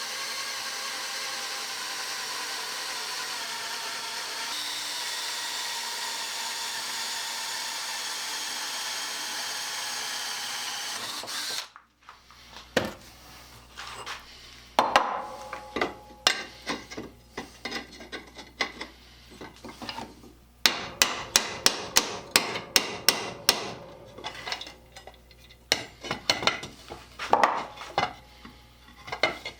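An electric power tool runs steadily with a whine, then stops abruptly about twelve seconds in. After that come hammer blows on steel, scattered at first, then a quick run of sharp strikes and more blows near the end.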